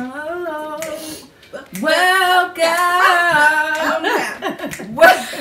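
Women's voices singing a short phrase with long held notes, breaking into laughter near the end.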